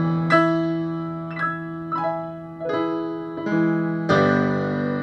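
Background piano music: slow, separate notes and chords struck one after another, each ringing and fading away.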